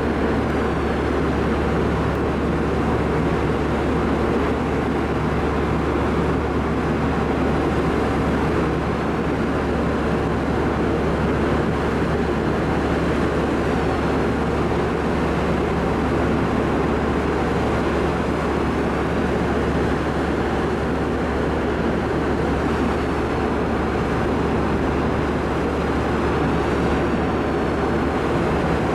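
Steady drone of the car ferry's machinery heard from its open upper deck: a constant low hum with a few steady low tones under a broad rush of noise, unchanging throughout.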